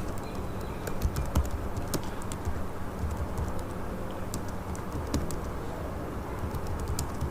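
Computer keyboard being typed on, irregular key clicks over a steady low hum.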